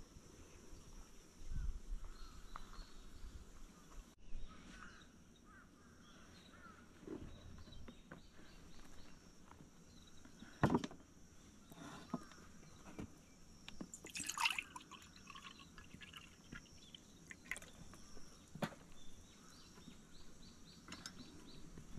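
Quiet outdoor ambience with a steady high insect drone and faint bird chirps, broken by a few sharp knocks of an enamel mug on a wooden table and a short splash of liquid poured into the mug midway.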